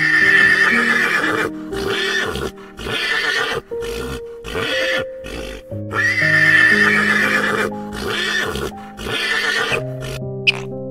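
A horse neighing: a long, loud whinny followed by several shorter calls, the same sequence heard twice, over steady background music.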